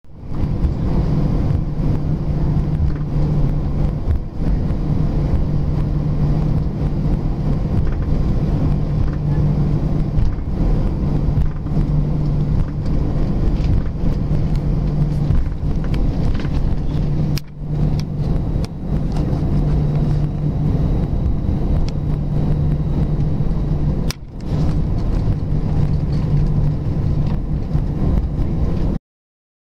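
Airbus A319 airliner taxiing, heard from inside the cabin: a steady jet-engine and airframe rumble with a constant low hum. The sound dips briefly twice in the later part and cuts off suddenly near the end.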